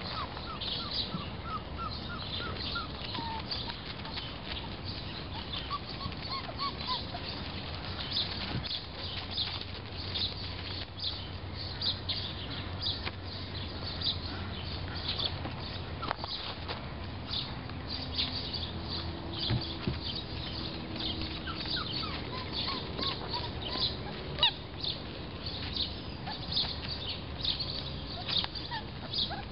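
Ducks and other birds calling in the background, with a few runs of quick falling chirps and a faint low call, over continual light scratching and rustling of small animals moving about.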